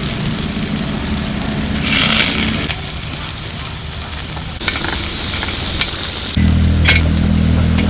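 Rotti of ground rice and mullu murungai leaf paste sizzling as it fries; the hiss swells and eases a couple of times.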